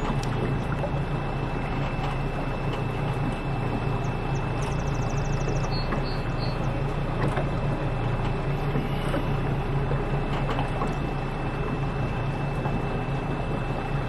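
Small motorboat's engine running steadily under way, heard from on board as a constant low drone with water and hull noise, and a thin steady high whine over it.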